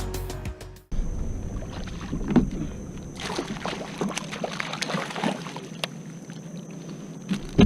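Water lapping and small knocks against a fishing kayak's hull, with a busier patch of sloshing and knocking in the middle. Background music fades out in the first second.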